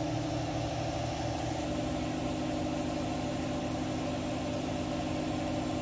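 Air compressor running steadily with a low throb, building up pressure in the air tank that will feed the steam whistles.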